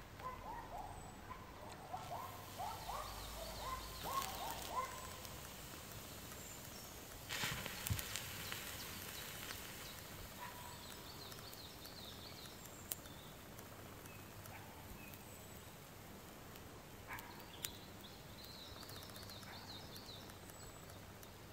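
Birds singing in woodland, with a brief crackling, hissing burst about seven seconds in from the tinder pile as the potassium permanganate and glycerol mixture reacts and begins to smoke.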